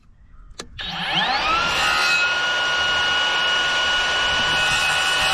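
A Skilsaw worm-drive circular saw is switched on after a short click. Its whine rises as the blade spins up, about a second in, then it runs steadily at full speed.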